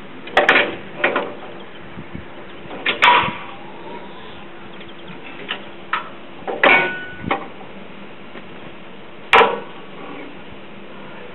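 Metal clanks and knocks from a truck-mounted geological drill rig being handled, about six sharp strikes spread irregularly with some lighter clicks between, some ringing briefly. A faint steady hum runs underneath.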